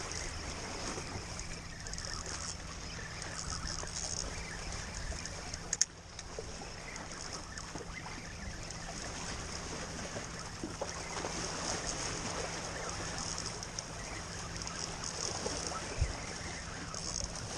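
Water washing against jetty rocks with wind on the microphone, under the faint working of a spinning reel as a hooked fish is fought on a bent rod. One sharp click about six seconds in and a low knock about sixteen seconds in.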